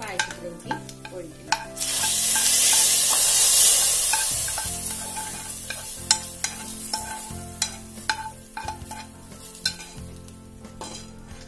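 Hot fried cashews and their frying fat poured from a frying pan into a pot of jackfruit payasam, sizzling loudly as they hit about two seconds in and dying down over the next few seconds. A spoon scrapes and clicks against the pan throughout.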